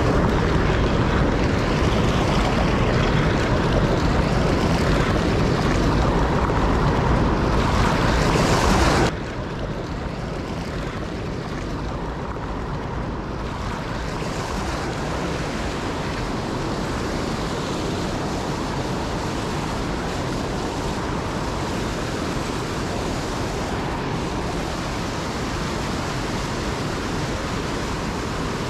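Steady rushing noise of wind and water, louder for the first nine seconds and then dropping suddenly to a lower, even level.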